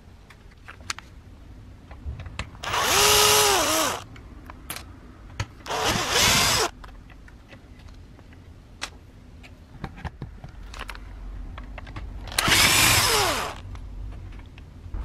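Handheld power drill run in three short bursts of about a second each, its pitch rising as it spins up and falling as it stops. Light clicks of metal parts being handled sound between the bursts.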